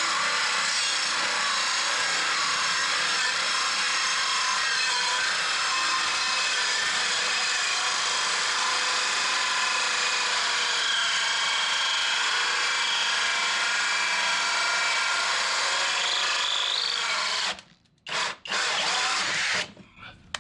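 Kobalt 24V XTR cordless drill driving an old, dull hole saw into wood. It runs steadily for about seventeen seconds, then stops, followed by two short bursts of the trigger.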